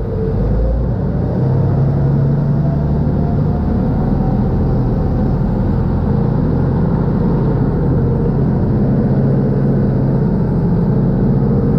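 Khlong Saen Saep canal express boat's engine running loud and steady under way, its pitch rising over the first five seconds or so as the boat pulls away from the pier and gathers speed.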